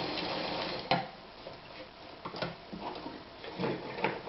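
1968 Anker Phoenix Excelsior ZZ 151 sewing machine running for about a second and stopping with a sharp clack, followed by a few scattered light clicks and knocks.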